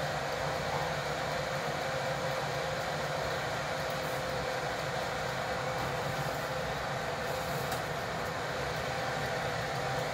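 Electric convection oven's fan running with a steady whir and hum.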